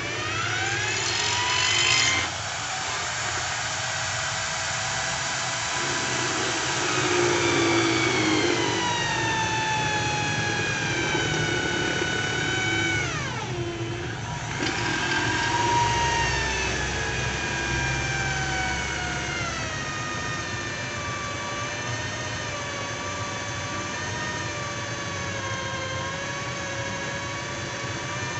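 Corded electric drill mounted in a homemade drill-press stand, running with a motor whine whose pitch slowly sinks as it is loaded. About halfway through the whine drops sharply and then climbs back to speed, settling lower for the rest.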